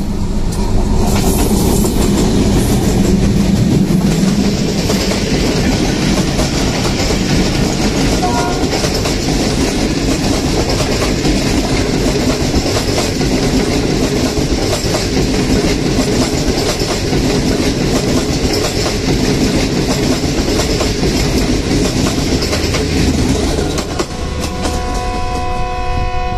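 A diesel-hauled passenger express passing close at speed on the adjacent track: a loud, steady rush of coaches and wheels with rapid clickety-clack. As its tail goes by near the end, the noise drops and a locomotive horn starts sounding, the departure whistle of the waiting train.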